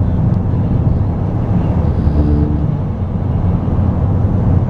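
Steady low rumble of a car's road and engine noise heard from inside the cabin while driving through a highway tunnel, with a brief faint tone about two seconds in.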